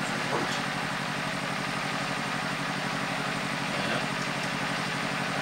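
A small engine running steadily, with a fast, even low throb under a constant hiss.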